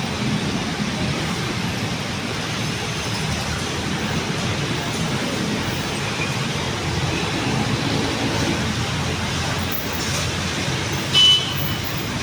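Steady road traffic noise from passing cars and buses, with a short, high horn beep about 11 seconds in.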